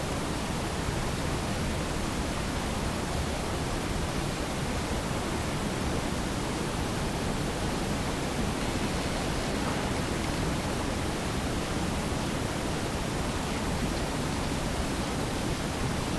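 A steady, even hiss that does not change, with no knocks, footsteps or calls standing out from it.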